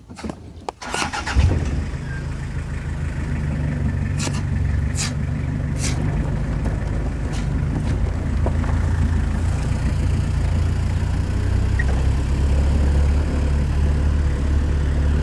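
Pickup truck engine starting about a second and a half in, then running steadily as the truck drives along, heard from the open load bed. A few sharp clicks and knocks come in the first six seconds.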